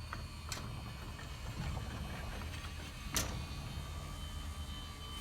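Motorised mortality-pickup cart running with a steady low drone, and two sharp clicks, one about half a second in and a louder one a little after three seconds.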